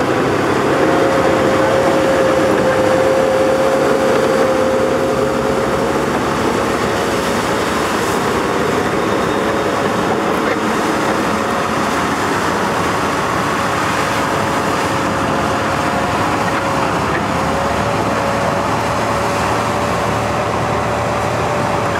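T-55-based tracked armoured recovery vehicle driving on sand: its V12 diesel engine running and its steel tracks clattering, with a steady whine held throughout.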